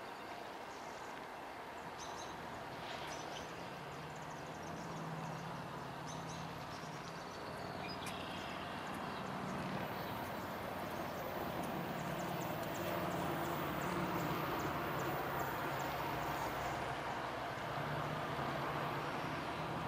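BNSF freight train's diesel locomotives approaching around a curve: a low engine drone mixed with wheel and rail noise, growing steadily louder, with fine clicking from the wheels in the second half.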